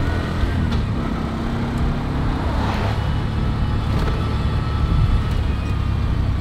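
Three-wheeled motorcycle taxi driving along a street, its small engine running steadily with a low rumble of engine and road noise, heard from the open rear passenger seat.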